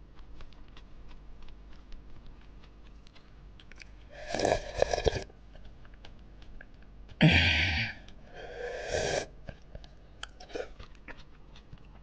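Close-up eating sounds: quiet chewing and wet mouth clicks, then three loud, airy slurps of stew broth drunk straight from a small aluminium pot, about four, seven and eight and a half seconds in.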